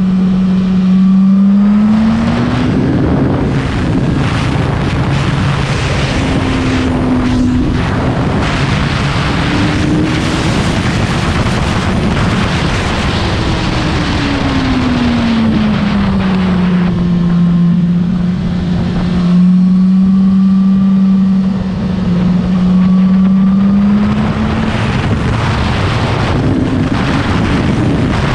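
Suzuki GSX-R1000 K7's inline-four engine at speed, with heavy wind rushing over the microphone. The engine note climbs and steps through the gears, falls away into a long steady stretch in the middle, then climbs again near the end.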